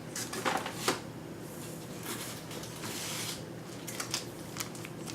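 Hard plastic graded comic slabs and their packaging being handled: a few light clicks and taps, a stretch of rustling from about one and a half to three and a half seconds in, then more scattered clicks.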